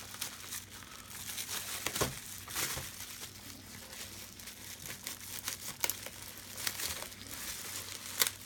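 Shipping package being torn and unwrapped by hand: wrapping crinkling and rustling, with short tearing sounds and scattered sharp clicks.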